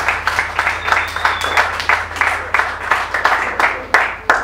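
Audience applauding at the end of a song. The clapping thins out towards the end, leaving a few last single claps.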